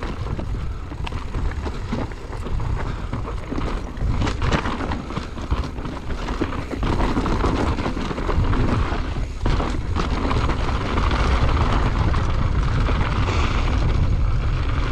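Wind buffeting a mountain biker's camera microphone over the noise of tyres rolling on dirt and gravel, with scattered clicks and knocks as the full-suspension bike rattles over rough trail on a downhill run.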